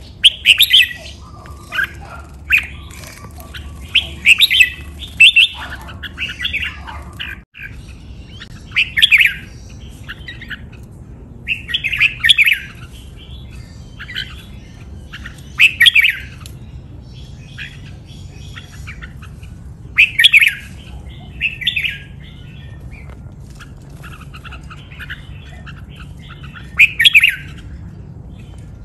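Caged red-whiskered bulbul singing: short, loud song phrases every few seconds, with quieter chirps between.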